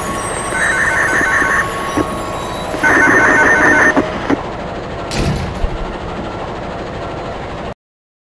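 Simulated diesel train running along the track, a steady noise, with two short bursts of rapid electronic ringing, the second louder, about half a second and three seconds in. A brief low whoosh follows around five seconds, and the sound cuts off suddenly near the end.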